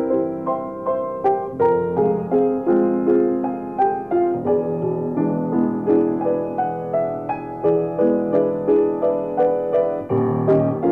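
Solo piano music: a flowing melody over an accompaniment, its notes struck at a steady pace of about three a second.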